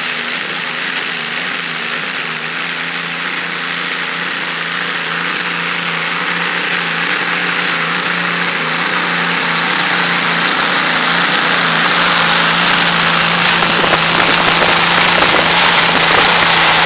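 Modified pulling tractor's engine running hard under load as it drags the weight sled. The engine note holds steady while the sound grows gradually louder through the run.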